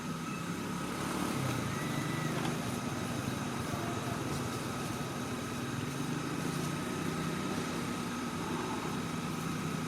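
A small engine running steadily: a low hum with a thin constant whine above it, and a short arched chirp about two seconds in.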